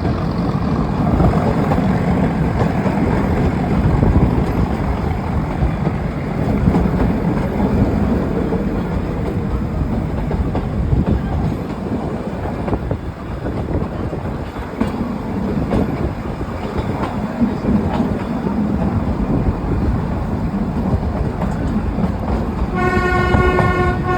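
Nilgiri Mountain Railway toy train running on the rails, a steady noise from the moving carriages. Near the end the train's horn sounds once, a held tone lasting about a second and a half.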